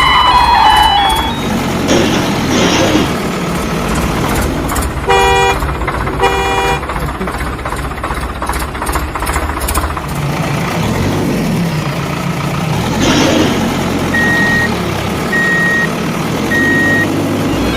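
Truck sounds: an engine running, its pitch rising and falling twice, two short horn toots about five seconds in, and three evenly spaced reversing beeps near the end.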